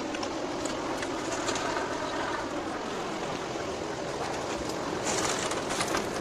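Steady machine running, with a few short clatters near the end.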